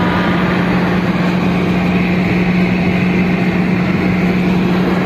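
Steady road noise of a car cruising on a motorway, heard from inside the cabin: tyre and wind rumble with a constant low hum.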